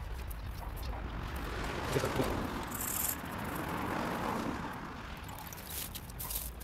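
A vehicle passing in the street, its noise swelling and fading over a few seconds above a steady low traffic rumble.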